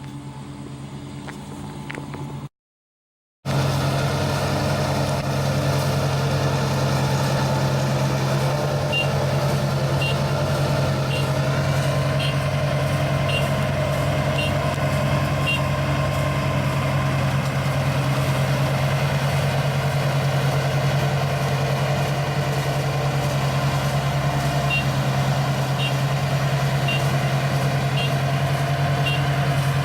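ISEKI 325 combine harvester's engine running steadily under harvesting work. The sound cuts out for about a second near the start, then comes back louder. Faint short high beeps repeat about once a second in two runs, from about 9 s and again near the end.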